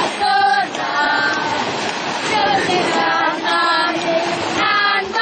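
High voices singing together in short held phrases, with little break between them.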